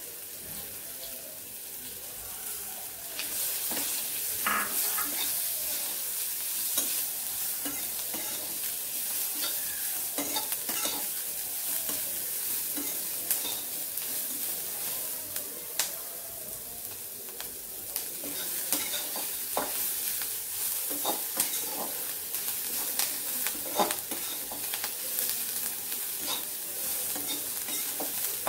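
Freshly added sliced onions sizzling steadily as they fry in hot oil in a metal kadhai, with a metal spatula scraping and clinking against the pan as they are stirred. This is the onions being sautéed in the tempering until they turn pink.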